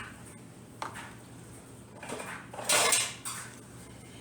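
Kitchenware being handled: a mixing bowl, utensils and a container knocking and clattering, with a sharp knock about a second in and the loudest clatter near three seconds.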